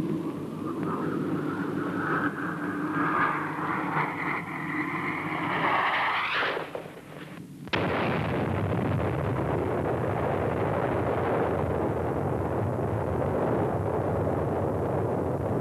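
A whine of several tones rising together in pitch builds for about six seconds and breaks off into a brief hush. Then, about eight seconds in, a small ground-burst atomic explosion: one sharp crack followed by a long, steady rumble.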